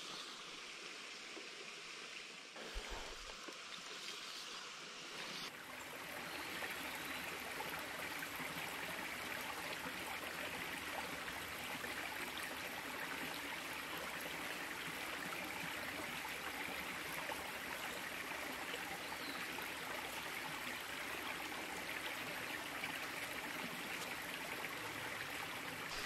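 Small, shallow brook running low, trickling and babbling over rocks, with a steady rushing hiss that gets louder about five seconds in. A single soft knock about three seconds in.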